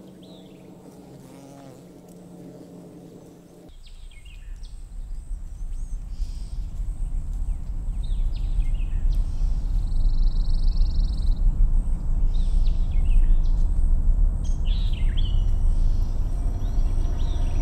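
A steady low hum with held tones cuts off suddenly about four seconds in. A deep, ominous rumbling drone then swells steadily louder, with scattered bird chirps and a brief insect-like buzz over it.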